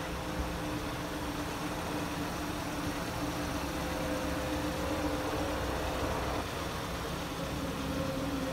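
Hyundai Santa Fe Sport's engine idling steadily, a low rumble with a steady hum.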